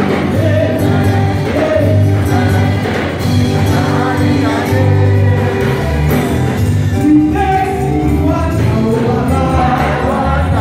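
Gospel music: a choir singing over instrumental accompaniment with strong low bass notes.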